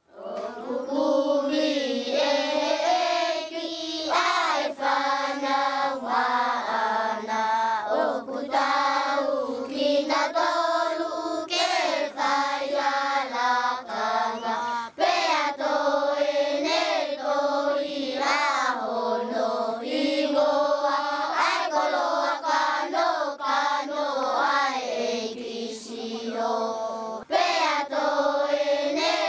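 A choir of high voices singing together.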